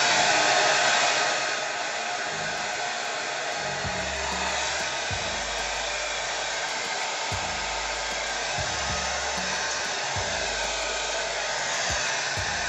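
Handheld hair dryer blowing steadily, growing a little quieter about a second and a half in.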